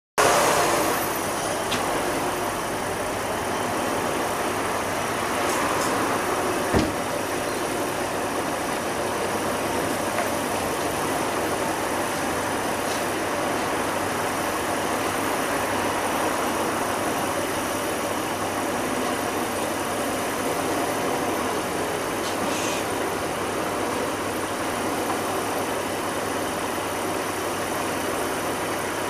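Lancia car engine idling steadily while running during a fuel-line cleaning, with cleaner fed in through a hose connected to the fuel line. A single short knock about seven seconds in.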